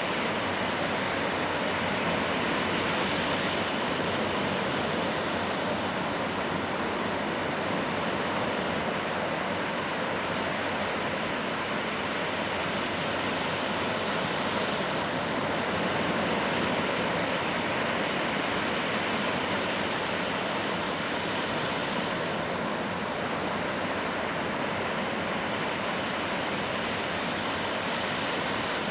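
Ocean surf on a beach: a steady rush of waves, with the hiss of washing water swelling briefly a few times.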